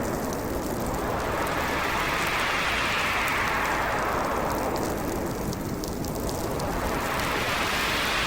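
Winter storm wind blowing in slow gusts over a steady hiss, swelling about two seconds in, dropping away, and building again near the end.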